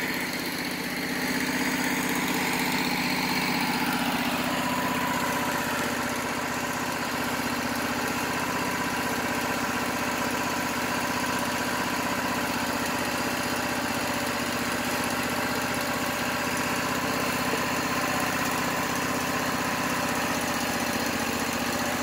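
Wood-Mizer LT15 portable band sawmill's engine running at a steady speed.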